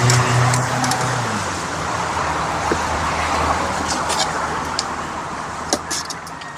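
A motor vehicle passing and moving away: its engine hum drops out about a second in, and the hiss of its tyres fades. A few light clicks come near the end.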